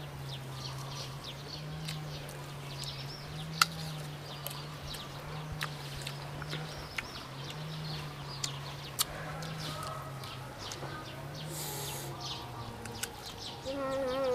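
Crisp bites and chewing of raw green mango, heard as scattered sharp clicks, over a steady low hum and bird chirps. A wavering animal call, like a bleat, comes in near the end.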